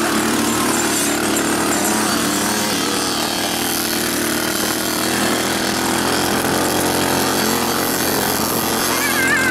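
Side-by-side UTV engine running steadily, heard from inside its cab, with a dirt bike's engine running close alongside.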